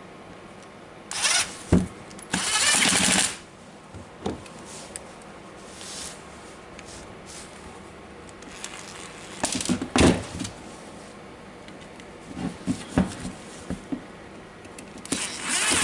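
Handling noise from the plastic housing of a Makita BHP458 cordless drill being put back together: a few short scrapes and scattered knocks and clicks.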